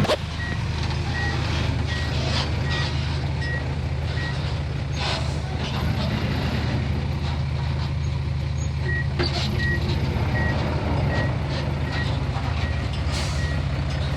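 Heavy earthmoving machine's diesel engine running steadily while a reversing alarm beeps in two runs of short, evenly spaced high beeps, a little more than one a second, with a few scattered clanks.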